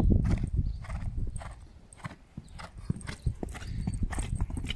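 Hoofbeats of a horse cantering on a sand arena: a run of dull, regular footfalls that fade around two seconds in and then grow louder again.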